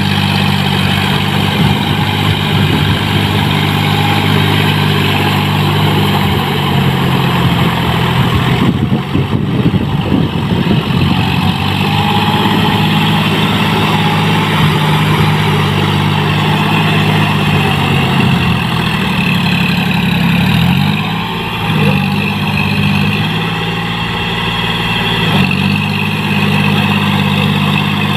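John Deere 5045D tractor's three-cylinder diesel engine running steadily under load as it drives through paddy mud on cage wheels. Its pitch dips and then recovers about two-thirds of the way in.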